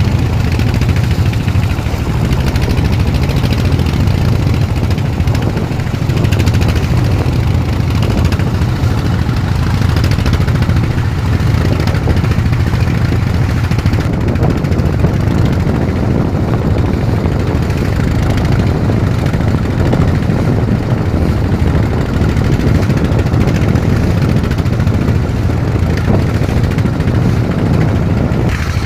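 Fishing boat's engine running steadily, a loud continuous low hum.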